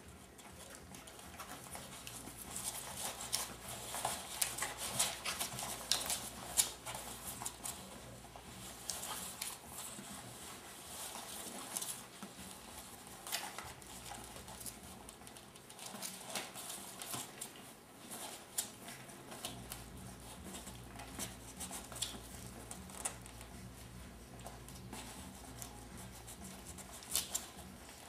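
Three-week-old border collie puppies suckling and wriggling against their mother: an irregular run of small smacking and clicking sounds with fur and bedding rustling, busiest a few seconds in.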